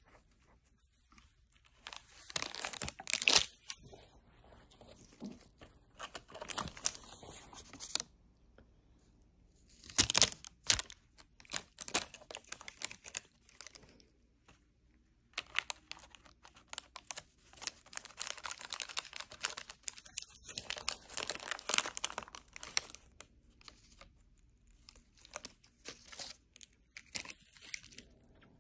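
A cat biting and chewing a strip of plastic, which crackles and crunches in irregular spells of a few seconds, with short pauses between.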